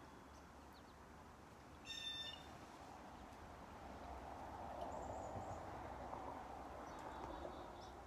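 Small creek running between snow and ice, a steady rush of water that swells a little after about four seconds. A short, high chirp sounds about two seconds in, with a few faint chirps later.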